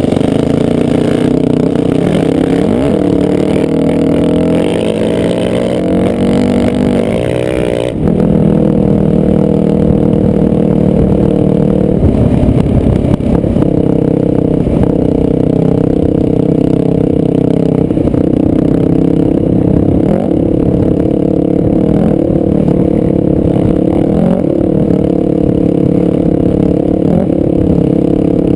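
Dirt bike engine running under way, its pitch rising and dipping a little with the throttle, with an abrupt change in tone about eight seconds in.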